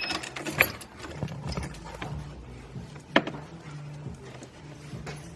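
A few scattered sharp clicks and knocks, the clearest about half a second in and about three seconds in, over a faint low hum.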